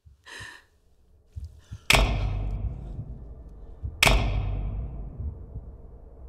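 Cinematic sound-design hits: a short whoosh, then two loud, deep booming impacts about two seconds apart, each dying away in a long echoing tail, over faint low pulses.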